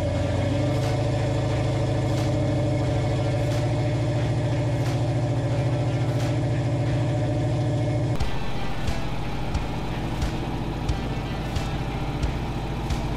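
Tow truck engine running at a steady pitch in low gear, pulling a stuck pickup backward up the bank. About eight seconds in the sound changes abruptly to a rougher, uneven vehicle sound with small clicks as another vehicle drives over sand.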